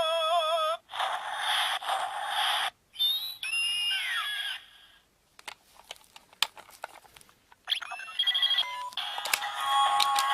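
Electronic sound effects from a Zyuoh Changer Final transformation toy's small speaker: a warbling tone, a hissing burst, then chirping sliding tones. About halfway through they stop for some three seconds with only a few clicks, and then more tones and noise start again.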